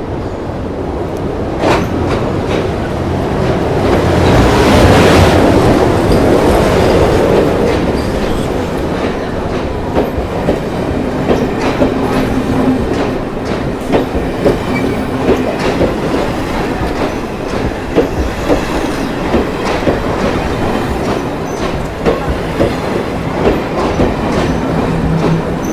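Metro train pulling into a station platform. The rush of the train builds to its loudest about five seconds in, then the cars roll on with repeated clacks of the wheels over rail joints.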